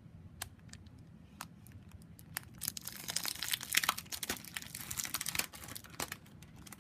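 Packaging crinkling and rustling as it is handled and opened by hand, a run of sharp crackles that is busiest in the middle.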